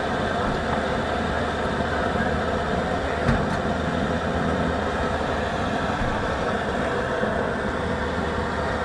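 Vintage engine running steadily, with one short knock about three seconds in.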